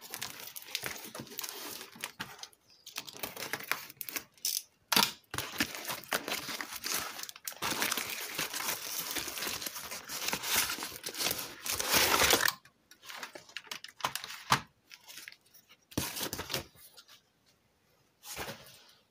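A taped cardboard parcel being torn open and its wrapping crinkled by hand. There is dense tearing and crinkling for about twelve seconds, then a few scattered rustles and knocks.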